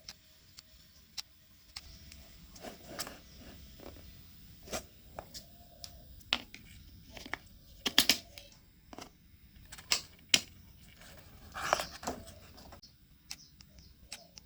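Hands working with cardboard: irregular clicks, taps and short rustles or scrapes, with a few sharper knocks about 8 and 10 seconds in.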